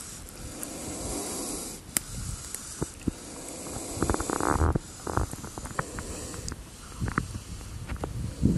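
Spectacled cobra hissing: deep, breathy puffs of air a few seconds apart, the defensive warning of a snake reared up with its hood spread.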